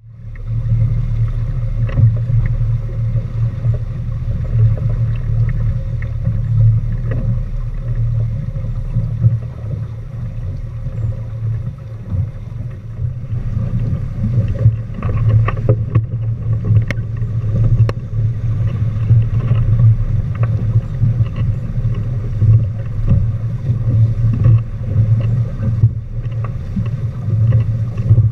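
A small sailboat under way: steady wind buffeting on the microphone over water rushing along the hull, with scattered light knocks and ticks.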